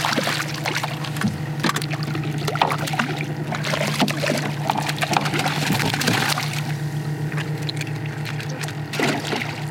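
Water splashing and trickling in small irregular bursts, over a steady low motor hum.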